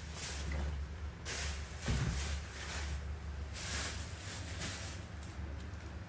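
Soft rustling and shuffling swishes over a low steady hum, with a short dull thump about two seconds in.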